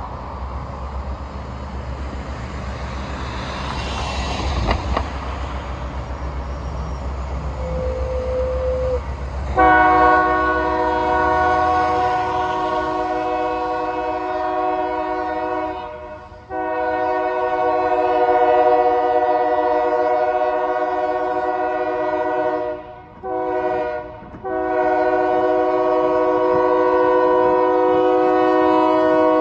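Nathan K3LA five-chime air horn on a pair of EMD road-switcher locomotives blowing the grade-crossing signal: two long blasts, a short one, then a long one. For the first ten seconds or so, before the horn starts, the diesel engines' low rumble comes on as they approach.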